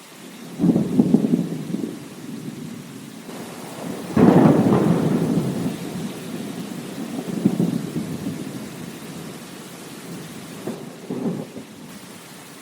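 Thunder rumbling over steady rain. A roll comes in just after the start, the loudest and longest about four seconds in, and shorter, fainter rumbles follow later.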